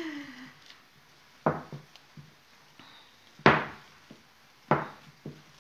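Three sharp knocks, the middle one the loudest, with fainter taps between, as a glass bowl of sausage-meat mixture is kneaded by hand on a wooden worktop.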